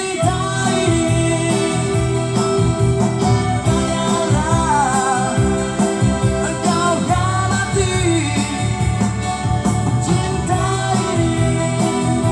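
A man singing a song over instrumental accompaniment, the music coming in sharply at the start.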